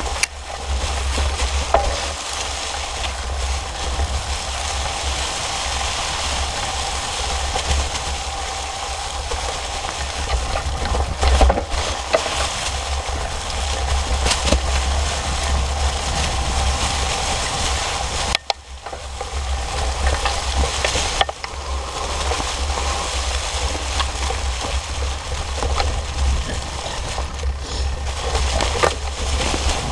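Fat bike's wide tires rolling and crunching through dry fallen leaves on a forest trail, a continuous rustling noise, with a steady low rumble underneath. The noise dips briefly about two-thirds of the way through.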